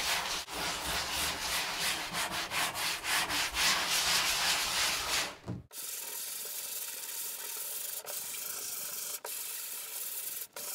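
Coarse 40-grit sandpaper scrubbed by hand over the plastic floor of a kayak hull in quick back-and-forth strokes, scratching the surface up so glue will grip. A bit past halfway the sanding stops abruptly and a steady vacuum cleaner hiss takes over.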